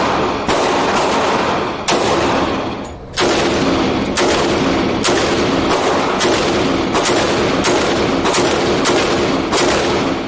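Gunshots from a semi-automatic pistol and an AR-15-style rifle in an indoor shooting range. There are three single shots spaced over a second apart at first, then a faster string of about two shots a second from about four seconds in. Each shot rings in the enclosed range.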